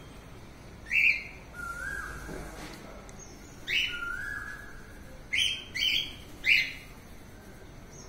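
Cockatiel calling and whistling: five short, sharp, loud chirps, one about a second in, one near the middle and three in quick succession soon after. Between them come two softer, level whistled notes.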